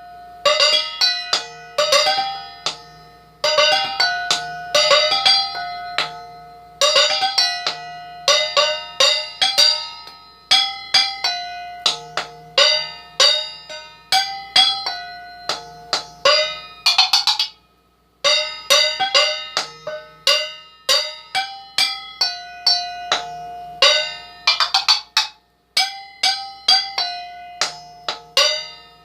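Mixing bowls struck as percussion in a rhythmic pattern, each hit ringing on with bell-like tones. Twice the strikes run together into a quick roll, a little past the middle and again later.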